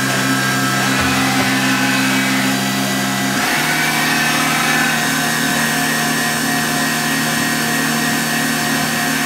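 1992 Mori Seiki MV35 vertical machining center running a program, its spindle and drives giving a steady motor whine. About three and a half seconds in the pitch steps to a new level, as the spindle changes speed, and then holds steady.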